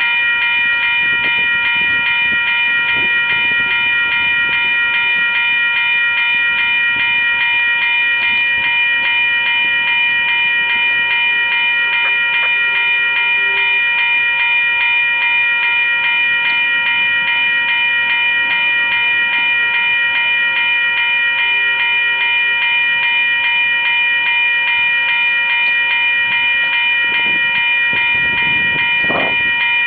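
Freight train of covered hopper cars rolling past, under a loud, steady high-pitched whine that holds one pitch without change; a few faint knocks near the end.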